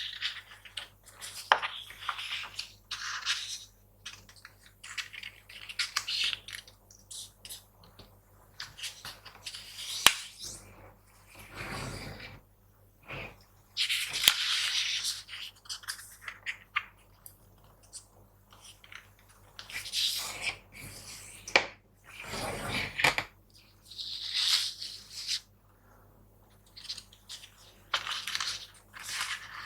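A sheet of paper being handled and folded: irregular rustling and crinkling, with short sharp creasing strokes and taps between quiet pauses.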